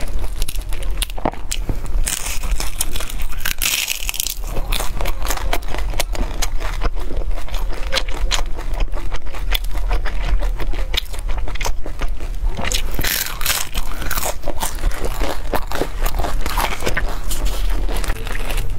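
Close-miked crunching bites and chewing of a crispy fried pastry roll, full of small irregular crackles.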